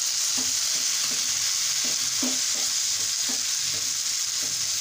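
Chopped tomatoes frying in hot butter with sliced onions in a non-stick frying pan over a medium-to-high flame, making a steady, loud sizzle as their juice hits the fat. A spatula stirs them, scraping and knocking lightly against the pan several times.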